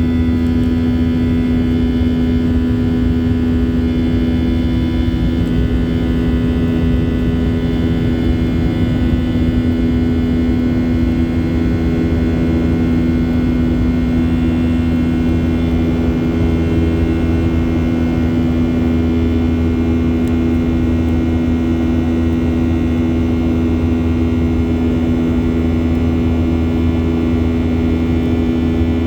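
Steady cabin noise inside a Boeing 737-800: its CFM56-7B turbofans and cabin air give an even low rumble with several steady whining tones, unchanging in pitch and loudness.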